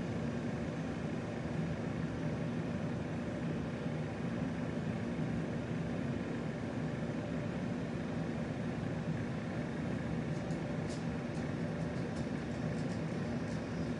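Steady low rumble with a faint hum, with a few faint ticks near the end.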